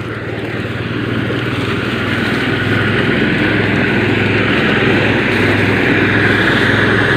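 A motor engine running steadily, growing louder over the first few seconds and then holding at a constant level.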